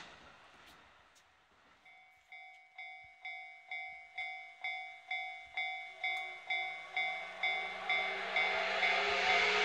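Level-crossing alarm ringing steadily about twice a second, starting about two seconds in. From about six seconds in, the long whistle of the D51-200 steam locomotive joins it, held and growing louder along with a rising hiss as the train approaches.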